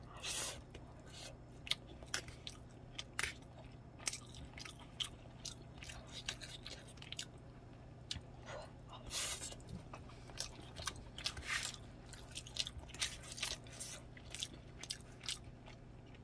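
Eating sounds: chewing a mouthful of rice and saucy topping, with frequent short wet clicks and smacks and a few longer soft noisy sounds.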